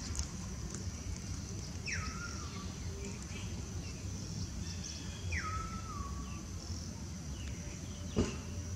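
Outdoor ambience: a steady low rumble and a steady high-pitched drone. Two short calls about three seconds apart each drop in pitch and then hold briefly. A single sharp knock comes near the end.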